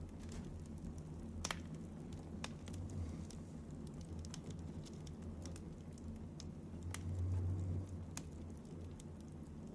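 Sleeping woman's soft, low breathing, one breath swelling louder about seven seconds in, with scattered faint clicks.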